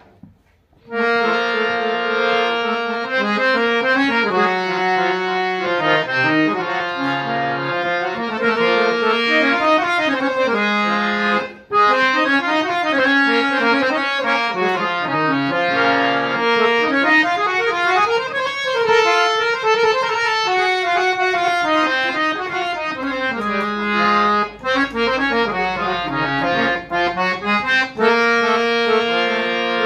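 Hand-pumped harmonium with three reed banks (male-male-female) of MJM premium reeds playing a melody over held chords, its notes sustained and reedy. It starts about a second in and drops out briefly near the middle.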